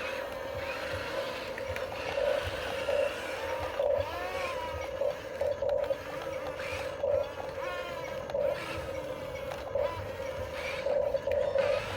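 Electric motors of a Huina remote-control construction model whining steadily, swelling in short pulses, with higher whines that rise and fall in pitch as the motors change speed.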